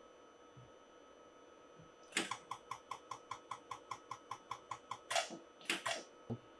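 A rapid, even run of short clicks with faint beeps, about six a second, from keys pressed on the laser welder's control panel as a value is entered, followed by three louder clicks near the end.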